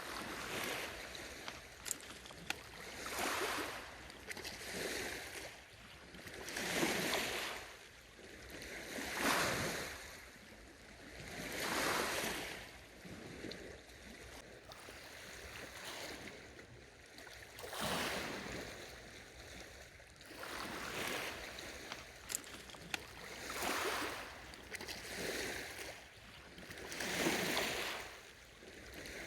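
Small lake waves washing in, a surge of splashing hiss about every two to three seconds, with a few sharp faint ticks among them.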